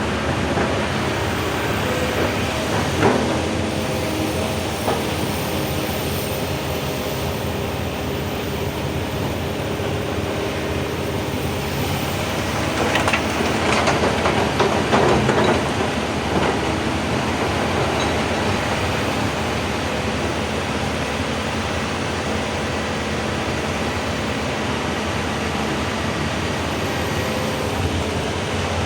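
Excavator running steadily at work, with a sharp knock about three seconds in and a few seconds of loud clattering around the middle.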